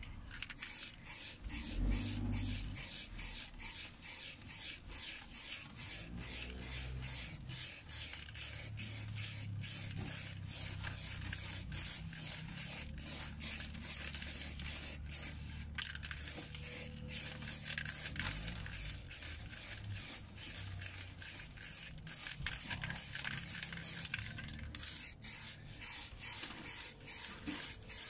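Aerosol spray-paint can hissing as black paint is sprayed onto a steel wheel, in quick short bursts about two a second, with longer, steadier spraying for several seconds past the middle.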